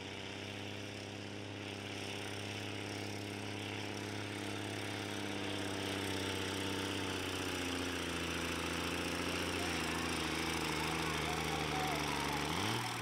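Tractor engine running steadily, its note rising sharply near the end as the revs go up.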